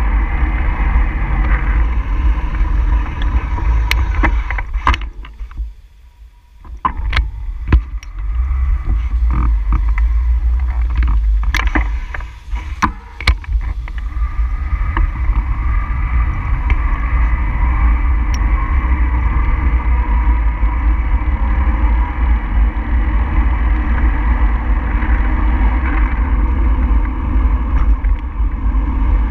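Steady low rumble of wind and road noise on a moving camera's microphone. A run of sharp clicks or knocks comes between about 4 and 13 seconds, with a brief dip in level around 6 seconds.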